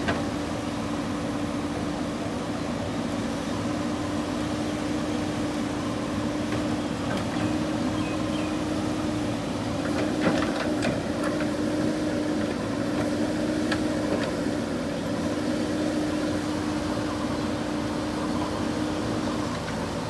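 JCB backhoe loader's diesel engine running steadily under load while the backhoe arm digs and lifts, with a steady hum over the engine that cuts off shortly before the end. A few light clicks come about ten seconds in, as the boom swings up.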